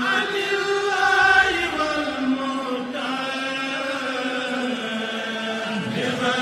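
Islamic devotional chanting: a voice holding long, drawn-out notes that slide down in pitch.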